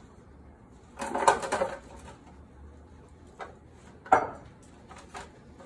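Chunks of raw cut vegetables tipped from a glass bowl into a metal roasting pan, clattering for under a second about a second in. A single sharp knock with a brief ring comes just after four seconds, with a few lighter taps as the vegetables are moved about in the pan.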